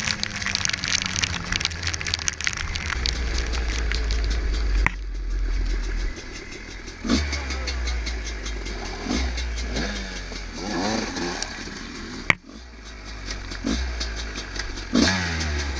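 Husqvarna WR300 two-stroke dirt bike engine running at low revs, with several short throttle blips rising and falling. Two sharp clicks sound about five and twelve seconds in.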